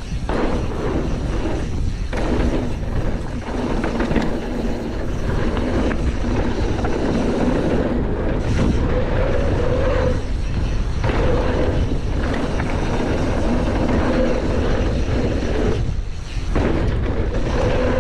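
Ride noise of a Canyon Torque full-suspension mountain bike going downhill on a bike-park trail: knobby tyres rumbling over dirt, drivetrain and frame rattle, and wind on the chest-mounted GoPro's microphone. The noise is steady and loud, with a few brief lulls now and then.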